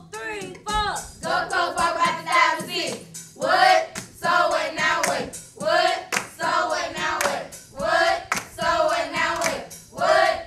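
A group of children singing a chant together in repeated phrases, with sharp hand claps among the voices.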